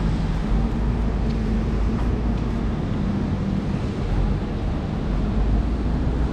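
Busy city street ambience: a steady low rumble of road traffic with engines running.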